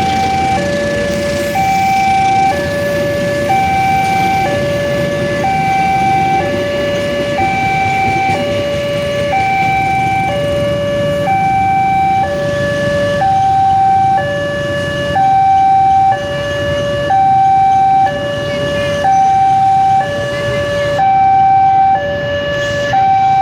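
Railway level-crossing warning alarm sounding: an electronic two-tone chime, a higher and a lower tone alternating about once a second, the signal that a train is approaching. Steady road traffic noise runs underneath.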